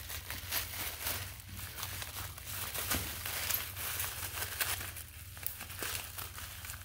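Plastic bubble wrap crinkling and crackling in irregular bursts as hands pull a wrapped carburetor part out and handle it.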